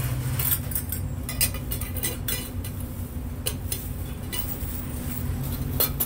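Clear plastic bags crinkling, with irregular light clinks as finished kettle pieces are handled and packed, over a steady low hum.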